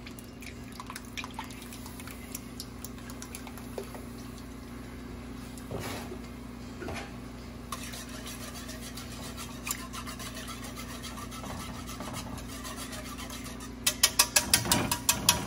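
Cream poured into an aluminium saucepan of roux base and stirred, with scattered light clicks of utensil on pot over a steady low hum. About a second and a half before the end a wire whisk starts beating quickly against the pot, several strokes a second, the loudest part.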